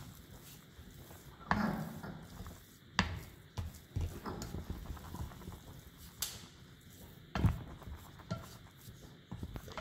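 Wooden spoon stirring thick cookie dough in a glass bowl, with irregular scraping and knocks of the spoon against the glass, about six of them, spaced one to two seconds apart.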